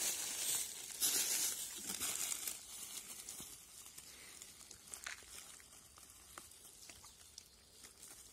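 Dry fallen leaves crunching and rustling under footsteps, then softer crinkling and small snaps of leaf litter as hands reach into it. Louder for the first couple of seconds, then quieter.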